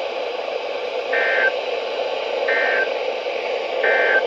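Three short Emergency Alert System end-of-message data bursts, the warbling two-tone digital chirps that close an alert, over the steady hiss of a NOAA Weather Radio receiver. The bursts each last about a third of a second and come about 1.3 seconds apart.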